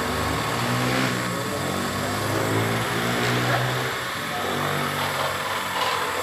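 A motor engine running, its pitch shifting up and down a few times and growing weaker after about four seconds.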